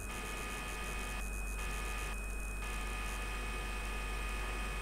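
Steady low electrical mains hum, with a faint steady high-pitched whine of several thin tones over it.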